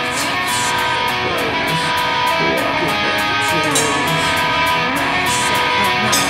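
Live metalcore band in a pared-down passage: electric guitars ringing with steady high cymbal or hi-hat ticks, and no bass or kick drum underneath.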